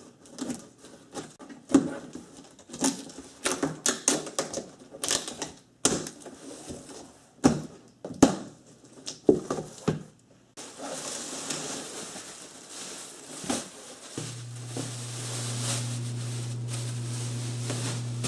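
Irregular clicks, knocks and rustles of a large cardboard shipping box being handled, for about ten seconds. Then a steady hiss sets in, joined a few seconds later by a steady low hum.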